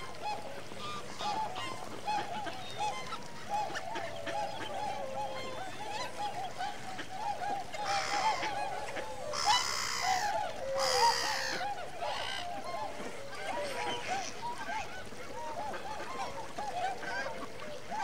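A flock of wintering waterfowl calling constantly, with many short, overlapping honks. A few louder, harsher calls stand out around the middle.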